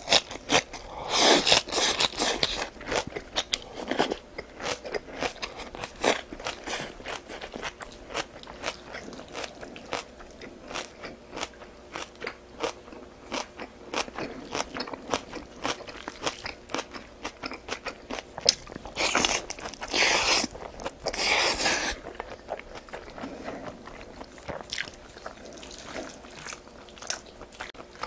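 Close-miked eating: a steady run of bites, crunches and chewing clicks, with longer noisy stretches about a second in and again around twenty seconds in.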